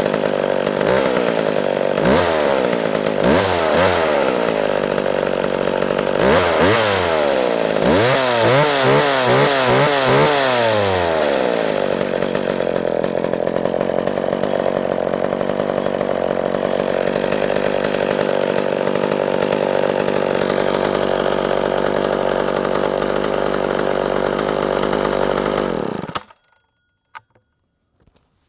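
McCulloch Mac 10-10 Automatic two-stroke chainsaw running: blipped several times in the first ten seconds, its pitch rising and falling, then idling steadily. It shuts off about two seconds before the end, leaving near quiet with a few small clicks.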